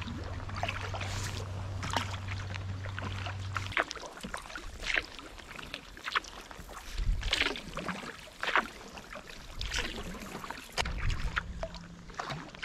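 Carbon kayak paddle strokes dipping and splashing, about one a second. A low steady hum stops suddenly about four seconds in.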